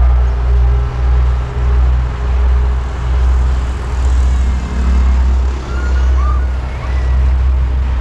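Loud low rumble, steady with brief dips every second or so, with a few faint high chirps about five seconds in.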